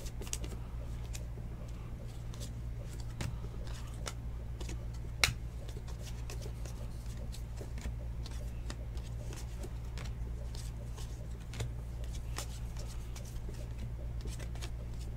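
Football trading cards being flipped and slid through the hands, card stock making small clicks and flicks, with one sharper click about five seconds in. A steady low hum runs underneath.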